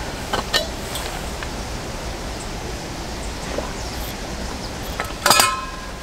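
A stainless-steel camping pot clinking and briefly ringing against its metal hanging hook about five seconds in, after a few light clicks near the start, over a steady background rush.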